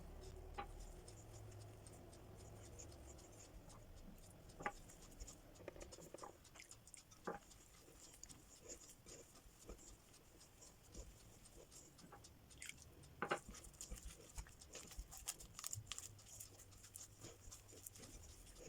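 Faint, scattered light clicks and taps of kitchen handling over near silence, with a sharper click about 13 seconds in and another near 5 seconds.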